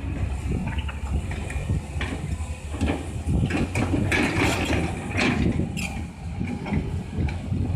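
Caterpillar 320C excavator's diesel engine running steadily under work, with sharp clanks and a rush of rattling noise about halfway through as the machine works.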